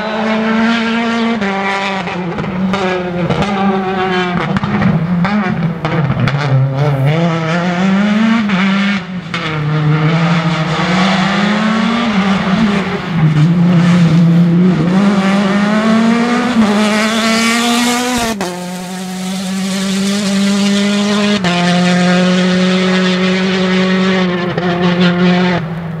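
Citroën DS3 R5 rally car's turbocharged four-cylinder engine at race pace, loud throughout, its pitch climbing and falling through repeated gear changes. About eighteen seconds in the note drops abruptly and then holds steadier, rising only a little.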